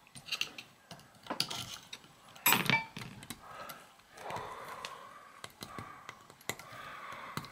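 Small metal clicks and scrapes as a lock washer is worked off a Sturmey-Archer three-speed hub axle with a screwdriver tip and fingers, with one louder, briefly ringing metal clink about two and a half seconds in.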